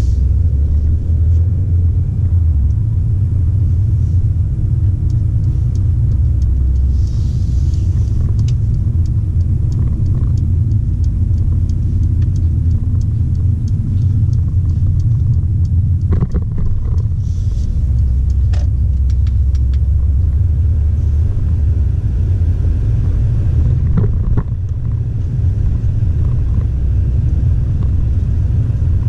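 Steady low rumble of a Mercedes-Benz A200 (W177) hatchback on the move, heard from inside the cabin: road and engine noise, with faint light clicks here and there.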